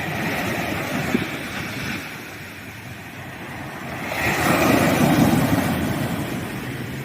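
Ocean waves breaking on a sandy beach: a rush of surf at the start, a lull, then a bigger wave crashing about four seconds in and washing back out.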